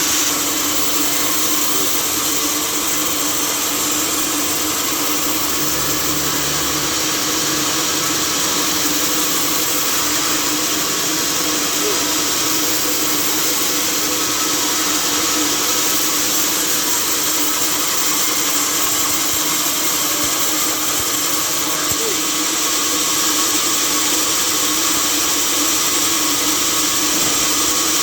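Sawmill saw running steadily as it works through timber: a constant loud machine noise with a steady hum beneath it.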